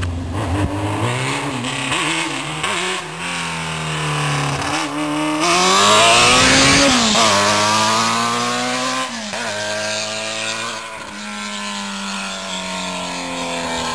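1992 Yamaha FZR600R's inline-four engine running with the exhaust removed, open pipes. The engine note climbs to its loudest about six to seven seconds in as the bike rides past, drops sharply, then runs steadier and a little quieter.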